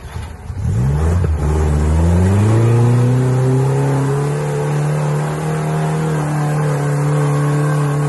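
UAZ off-roader's engine revving up under load as it climbs a muddy bank: the pitch rises for about two seconds from about half a second in, then holds steady at high revs.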